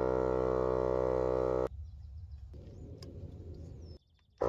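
Portable air compressor running with a steady buzz while inflating a trailer tire toward 45 PSI. It cuts off abruptly after under two seconds, leaving a quieter steady noise, and starts again abruptly near the end.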